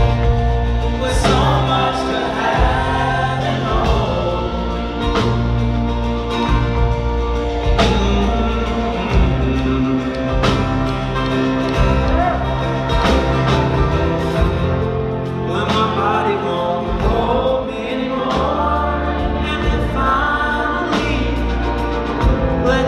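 Live folk band playing: acoustic guitar, banjo, cello and drums, with wordless vocal harmonies held over sustained chords and occasional drum hits.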